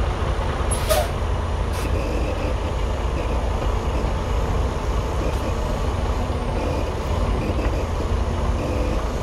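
Semi truck's diesel engine running low and steady as the tractor backs up slowly with the trailer's brakes set, pushing the trailer body back over its locked tandem axles. A couple of short clicks about one and two seconds in.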